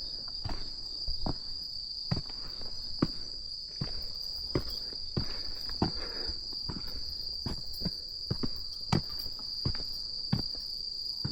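Steady high-pitched trilling of night insects such as crickets, unbroken throughout, with footsteps of a person walking, about one to two steps a second.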